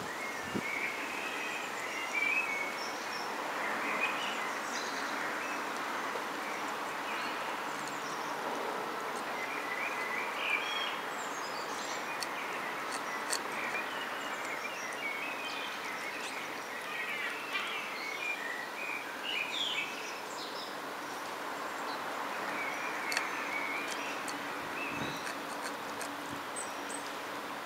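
Small birds chirping in bursts over a steady outdoor background hiss, with a few faint clicks about halfway through.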